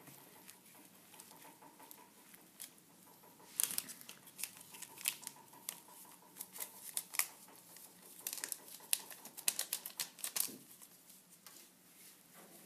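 Irregular crinkling and sharp crackles of a baking-powder sachet being shaken out and of plastic gloves, while margarine and flour are worked together by hand. The crackles come in a dense stretch through the middle and stop about two seconds before the end.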